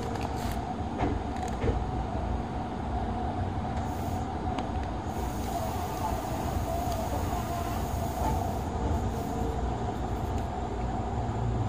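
Running sound heard inside a Tokyo Metro 03 series VVVF electric train car: steady wheel-and-rail rumble with a constant hum. A hiss joins about five seconds in and lasts about three seconds.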